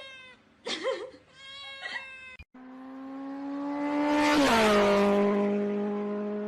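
A cat meows a few short times. Then, after an abrupt cut, a fast engine passes by: its steady pitched note grows louder, drops sharply in pitch as it goes past about halfway through, then holds lower, like a race car passing at speed.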